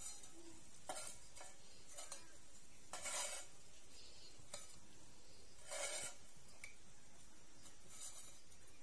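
Chopsticks scraping and tapping on a thin metal plate and a frying pan while fried spiders are moved. There are four short scrapes, with the longest about three and six seconds in.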